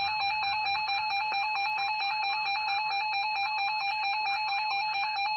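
Emergency Alert System two-tone attention signal: the 853 Hz and 960 Hz tones sound together as one steady, harsh electronic tone, the signal that an emergency alert message follows.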